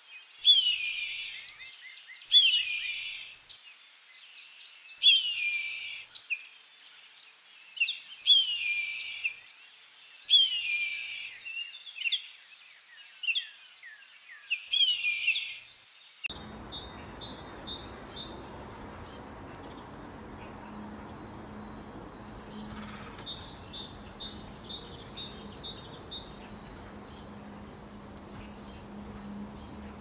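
A hawk's loud, high screams, each sweeping down in pitch, repeated about every two seconds. About halfway through, this changes abruptly to faint high chirping and twittering of small finches, such as a common redpoll, over a low steady hum.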